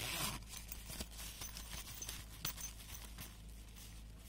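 Handling noise from a canvas waist bag and its nylon webbing strap: a brief rustle at the start, then a few scattered light clicks and taps.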